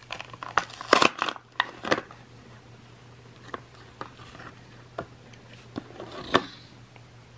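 Stiff clear plastic blister packaging crackling and snapping as it is pulled away from its cardboard backing card, a dense run of sharp crinkles for about the first two seconds, then scattered single clicks, the loudest about six seconds in. A steady low electrical hum sits underneath.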